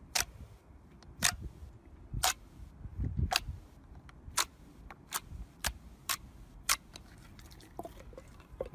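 Slime being handled in close-up, giving sharp, crisp clicking pops about once a second, coming a little faster in the middle and tailing off into fainter crackles near the end.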